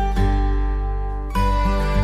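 Background music with plucked string notes, such as guitar, over a steady bass; a new chord comes in about a second and a half in.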